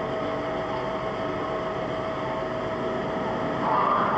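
Steady mechanical hum with a constant mid-pitched tone, growing briefly louder near the end.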